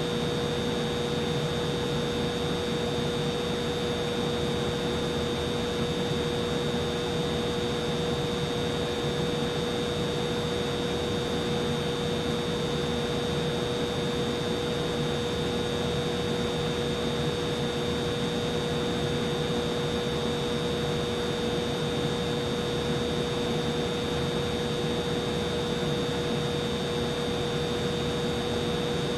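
Humidifier running steadily: a constant hum with a high whine above it.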